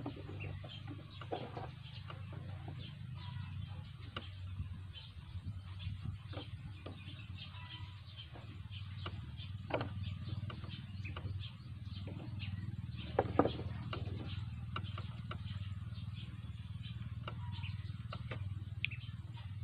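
Small plastic parts being handled, pressed and glued together on a wooden table: scattered light clicks and taps, with louder knocks about ten seconds and about thirteen seconds in, over a steady low background hum.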